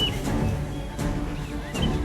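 Background music with sustained low notes, with a few short bird chirps near the end.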